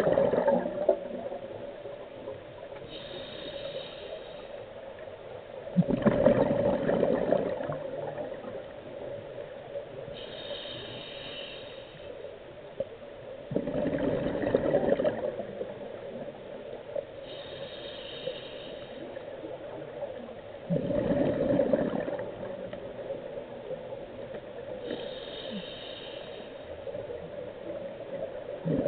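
Scuba diver breathing through a regulator underwater: a faint hiss of inhalation through the demand valve, then a louder rush of exhaled bubbles lasting about a second and a half, the cycle repeating about every seven seconds, four times.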